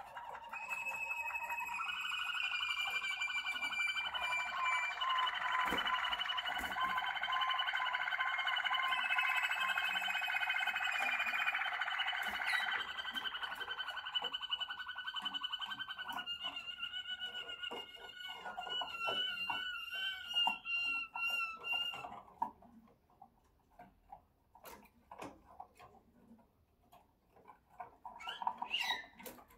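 Waterslager (Malinois) canary singing a long unbroken song of held notes and rolling trills, which stops about two-thirds of the way through. After it, only scattered faint clicks and a brief call near the end.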